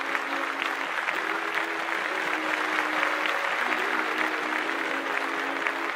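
A crowd of guests clapping steadily, with soft background music of held notes underneath.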